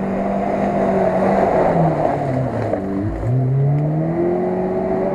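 Off-road 4x4 engine revving under load in mud, its pitch sagging about two seconds in and climbing again after about three seconds.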